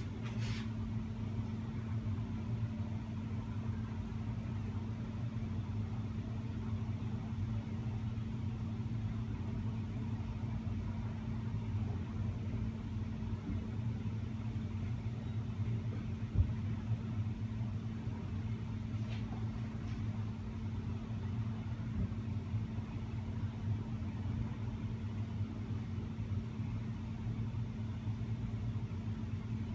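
A steady low machine hum with a couple of fixed tones, and one soft knock about sixteen seconds in.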